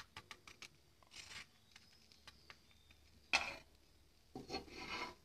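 Metal slotted spatula scraping across a dry tawa under a roti wrap, three short scrapes with the loudest about three and a half seconds in, among faint scattered ticks.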